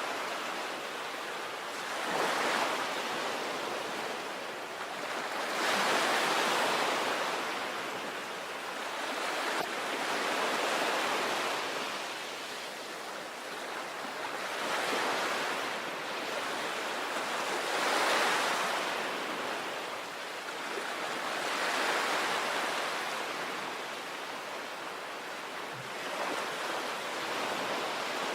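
Sea waves breaking and washing back, each wave swelling and fading in a slow rhythm, about one every three to four seconds.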